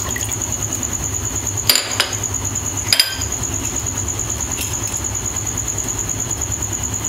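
A small dish clinks sharply against a hard surface three times, around two and three seconds in, over a steady low hum.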